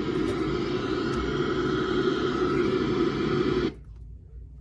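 Sangean CL-100 weather radio's speaker hissing with static while tuned to a weather channel with no clear signal. The static cuts off suddenly near the end.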